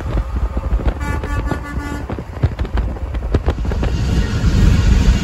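Grover 1680 air horn on an International 9400 semi-truck sounding one blast about a second long, over wind and road noise. Low road rumble grows louder near the end.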